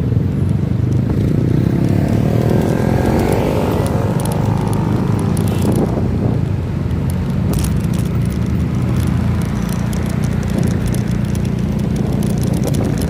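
Motor vehicle engine running steadily while travelling, with road and wind noise; its note rises and falls about two to four seconds in.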